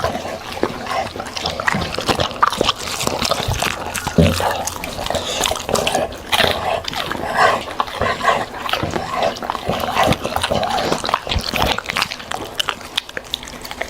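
A dog eating fruit and vegetables: continuous wet chewing, crunching and lip-smacking, with many short clicks throughout.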